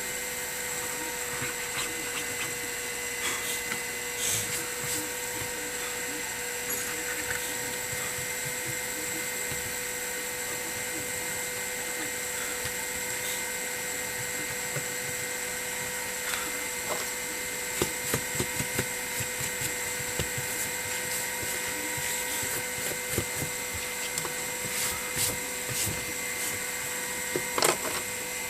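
A steady high-pitched electrical whine runs under scattered small clicks and taps from tools and parts being handled during a phone screen repair. The clicks come thicker in the second half.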